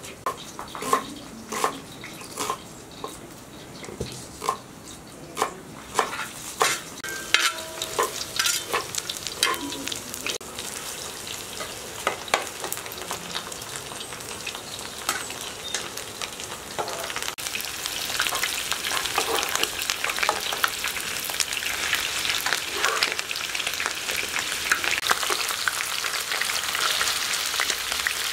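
A knife chopping red onion on a wooden cutting board, irregular sharp knocks. About a third of the way in, this gives way to pieces of raw lamb frying in a hot iron sadj pan, a sizzle that grows louder as the meat is stirred with a metal slotted spoon.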